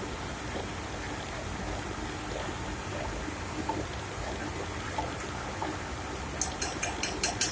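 A steady rushing noise, with a quick run of about six sharp, high clicks near the end.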